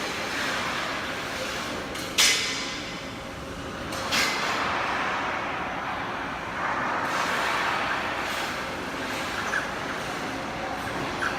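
Cosen semi-automatic miter bandsaw and its material-handling system running with a steady mechanical noise, broken by a sudden loud sound about two seconds in and a smaller one about four seconds in.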